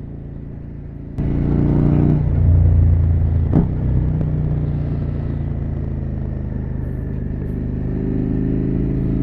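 Suzuki SV650's V-twin engine running through an SC Project exhaust with the dB-killer baffle removed. A quieter steady engine note steps up sharply about a second in to a much louder, deeper exhaust note that holds at fairly steady revs, with one sharp click a few seconds later.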